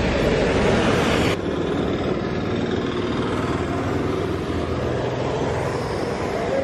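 Road traffic: cars and a bus passing, engine noise with tyres on a wet road. The noise drops abruptly about a second and a half in.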